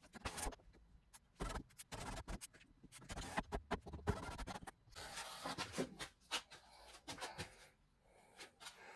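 Irregular clicks, knocks and scraping of hands handling plastic and metal parts inside a car door stripped down to its window regulator mechanism.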